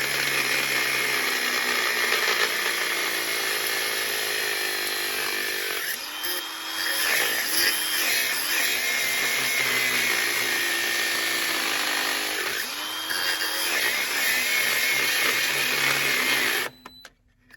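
Angle grinder with a cutting disc cutting through the head of a seized steel bolt. Its whine sags in pitch twice as the disc bites and then recovers. It cuts off suddenly near the end.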